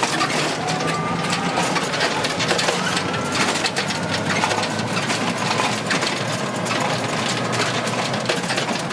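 Small vehicle's engine running steadily while driving along, heard from aboard, with road noise and irregular rattles.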